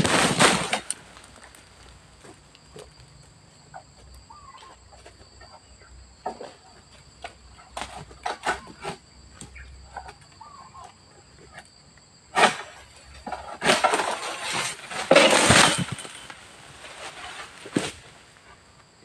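Bursts of rustling and scraping in the palm foliage, with scattered clicks and a single sharp knock, loudest during a long stretch about two-thirds of the way in. A steady high-pitched insect drone runs underneath.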